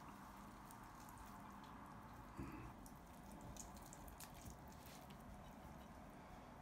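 Near silence: faint room tone with a few soft, wet clicks from hands placing pieces of boiled meat onto a plate of noodles.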